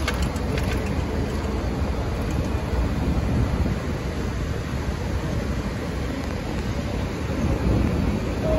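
Steady low rumble and hiss from an R62-series New York City subway car at an elevated station platform, growing a little louder near the end.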